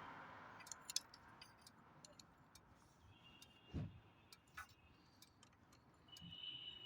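Near silence with faint scattered clicks, one soft thump a little before four seconds in, and a faint steady high tone from about six seconds in.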